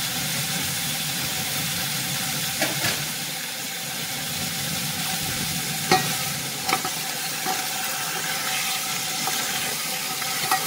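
Chicken pieces sautéing in a little oil in a stainless steel pot, with a steady sizzle. A wooden spoon knocks and scrapes against the pot several times as it stirs, most sharply about six seconds in.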